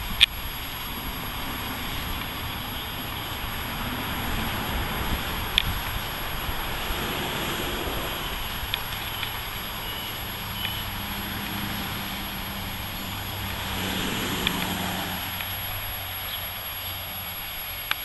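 Steady outdoor background noise with a few sharp clicks and a low hum that comes in during the second half.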